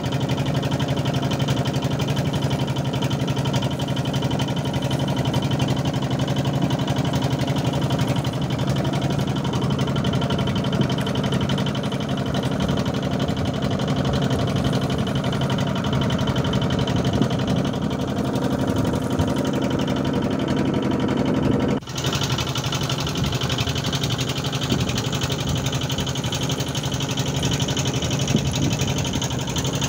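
A boat engine running at a steady speed, giving a continuous low hum that drops out for a moment about two-thirds of the way through.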